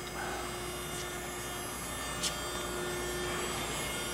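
Steady hum of an Okamoto ACC-16.32DX surface grinder's hydraulic unit running, its oil already circulating, with a couple of faint ticks.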